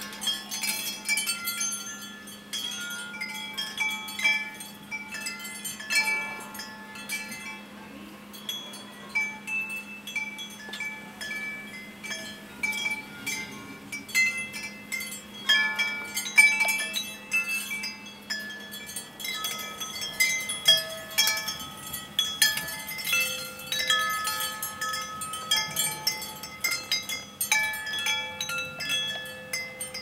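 Metal tube wind chime ringing in storm wind: many irregular strikes at different pitches that ring on and overlap, over a steady low hum.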